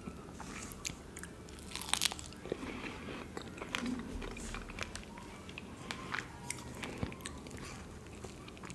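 Close-miked biting and chewing of a fresh fig, with sharp little clicks and crunches scattered irregularly through it, the loudest about two seconds in.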